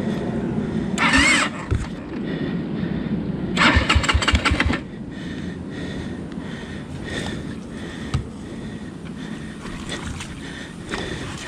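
Dirt bike engine revved hard in two short bursts, about one second and about four seconds in, between which it keeps running, then running at a lower, steady level.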